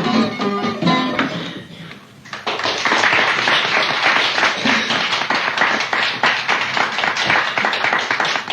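Last acoustic guitar chords of a song ringing and fading out, then a small audience clapping from about two and a half seconds in.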